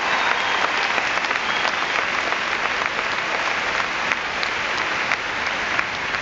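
A large crowd applauding, dense steady clapping that eases off slightly toward the end.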